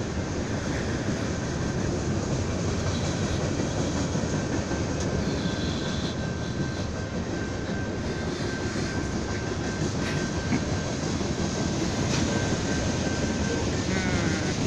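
Freight train cars rolling past at a grade crossing: a steady rumble of steel wheels on the rails. A thin, steady high squeal runs through most of it and fades near the end.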